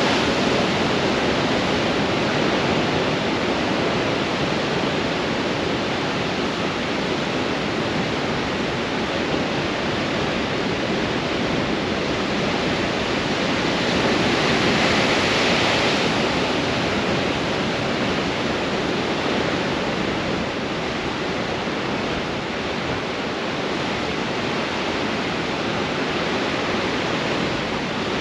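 Storm surf crashing against rocks in strong wind: a continuous roar of breaking water and spray, with one wave breaking louder about halfway through.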